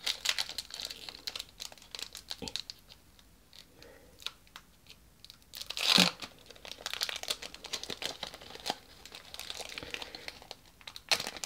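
Foil wrapper of a Pokémon trading-card booster pack being torn open and crinkled by hand, with a louder crackle about halfway through.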